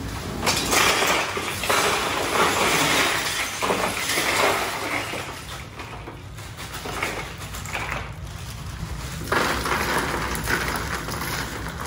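Ice cubes poured from a bag into an ice chest, clattering and clinking over glass bottles and cans: one long pour in the first half, a quieter lull, then a second pour near the end.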